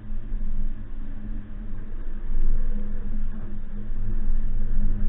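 Suzuki Jimny's engine running at low, steady revs while driving, a low hum that swells slightly about halfway through.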